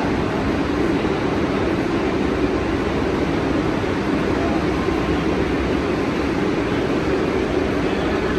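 New York City subway train running, a loud steady rumble and roar that holds without change.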